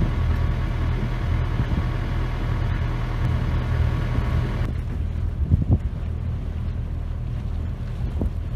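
A sailboat's inboard engine running steadily under way, heard as a low even hum, with some wind on the microphone.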